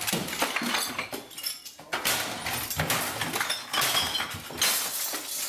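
Glass shattering and crashing, a dense run of breaking impacts with high ringing, dropped in as a sound effect that starts and cuts off abruptly.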